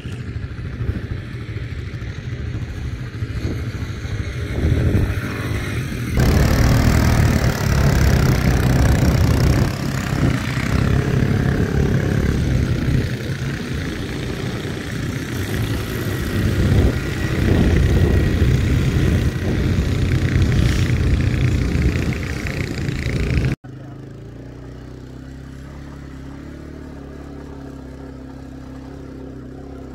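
Quad bike (ATV) engine running and revving as it is ridden over sand, loud and rough. About 24 s in it cuts off suddenly to a quieter, steady engine idle.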